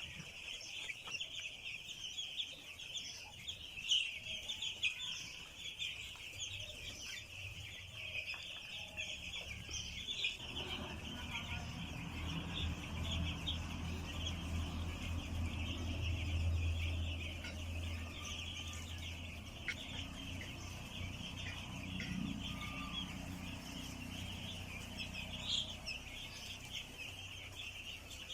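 A flock of week-old chicks peeping continuously, many high calls overlapping. A low hum joins in about a third of the way through.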